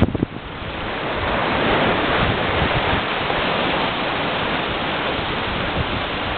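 Steady rush of choppy open-ocean water around a 32-foot sailing yacht under way, mixed with wind on the microphone. It opens with a sharp click and a brief dip before the rush builds.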